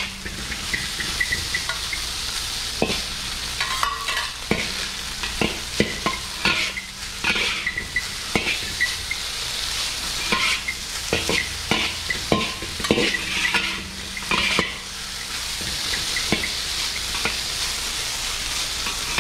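Rice and egg frying in a wok with a little oil over turned-up heat, sizzling steadily, while two metal spatulas scrape and clack against the wok at an irregular pace as the rice is tossed and broken up.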